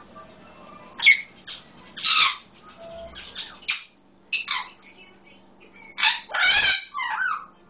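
Solomon Island eclectus parrot squawking, mimicking the calls of a red-lored amazon. The squawks come irregularly, the loudest about two seconds in and in a cluster near the end.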